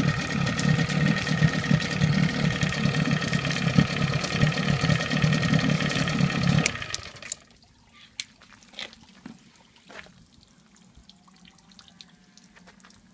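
Johnson 30 hp two-stroke outboard engine running steadily, then cut by its kill switch a little over halfway through and dying away within about a second. Water drips and trickles faintly after it stops.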